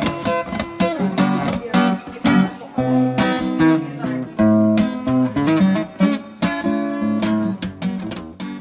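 Acoustic guitar strumming chords without singing, the playing getting quieter near the end.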